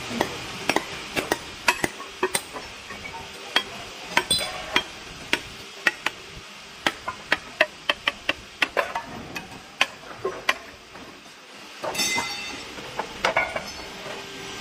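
A hammer striking the edge of a stone slate slab again and again, sharp clinking strikes a few a second, as the slab is worked into thin sheets. About twelve seconds in there is a busier stretch of clattering.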